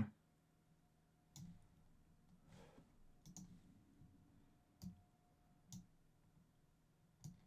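Faint computer mouse clicks, about five of them spaced a second or so apart, over near-silent room tone.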